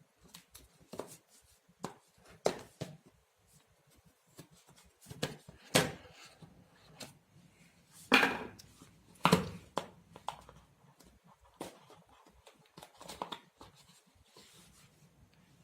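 Handling of a smartphone's cardboard retail box and packaging as the phone is taken out: scattered light clicks and taps with short rustles. The loudest are two brief scrapes about 8 and 9 seconds in.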